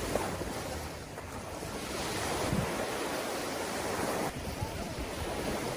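Small wind-driven waves breaking and washing up on a lake beach, a steady surging wash with some wind buffeting the microphone.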